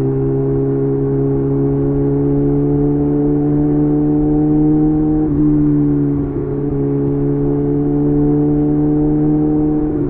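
Kawasaki ZX-6R inline-four running through a Leo Vince aftermarket exhaust under steady throttle. The pitch climbs slowly, dips briefly about five seconds in, then climbs again.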